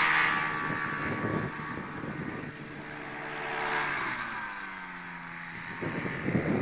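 Pegasus Cyclone AX2000 microlight's two-stroke engine and pusher propeller running as it taxis on grass. The pitch swells and then sinks about four seconds in as the throttle comes back. Wind buffets the microphone now and then.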